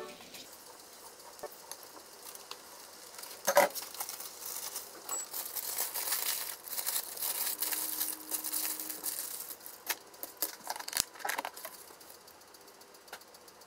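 Aluminium foil crinkling and rustling as it is handled and folded, with a sharp knock about three and a half seconds in and a few light clicks.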